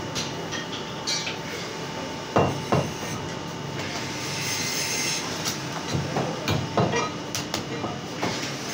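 Goat meat being trimmed with a knife over a wooden butcher's block: a few sharp knocks, two about a third of the way in and three more in quick succession past the middle, over a steady mechanical hum.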